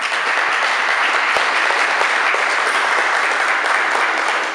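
A small audience clapping steadily, beginning to die away near the end.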